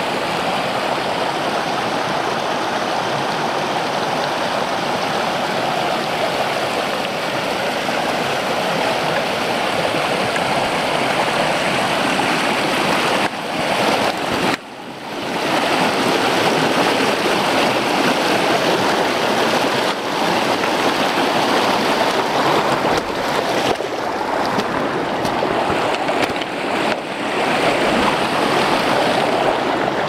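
Small mountain creek rushing and splashing over rocks, a steady loud rush of water. It dips briefly about halfway through and comes back a little louder.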